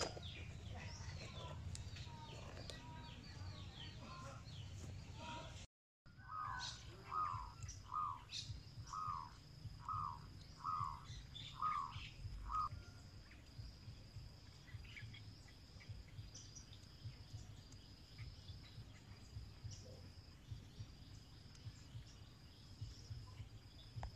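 Outdoor ambience of small birds chirping. After a brief dropout, one bird repeats a short call about eight times, a little under once a second, while a thin high insect trill comes and goes.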